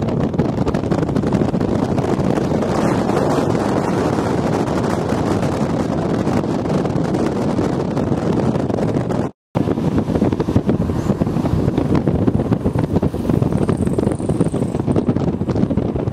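Wind buffeting the microphone over the road noise of a moving vehicle, a steady rush that cuts out completely for a moment about nine seconds in.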